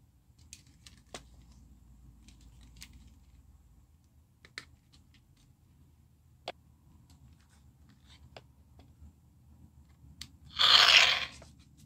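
Plastic parts of a toy sword being handled: scattered light clicks and taps, then one loud burst of noise lasting under a second near the end.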